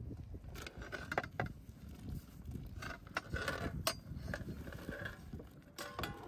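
Metal skimmer scraping and clinking against an enamel plate as thin squares of dough are pushed off it into a pot of boiling water, then a short metallic ring as the skimmer knocks the aluminium pot near the end. A steady low rumble runs underneath.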